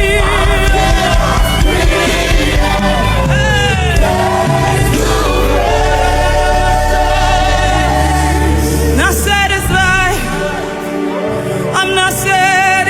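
Live gospel worship music: singers holding long, wavering notes over a band with a steady bass.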